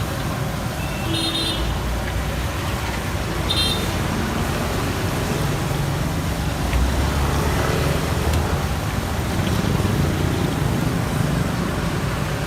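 Road traffic running steadily, with one vehicle swelling past in the middle. Two short high beeps sound in the first few seconds.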